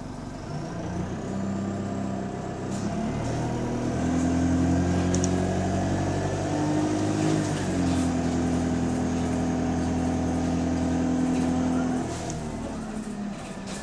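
Bus engine pulling hard under acceleration; its note steps up and down as the automatic gearbox changes gear, then falls back about twelve seconds in as the throttle eases. The bus has an exhaust leak, which this engine sound carries.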